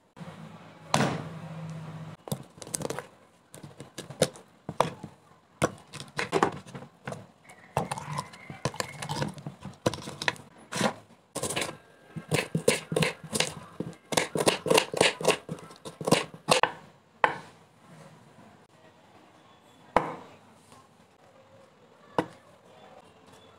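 Kitchen knife cutting red onion on a wooden chopping board: scattered knocks, then a quick run of chopping strokes in the middle, with a few single knocks near the end.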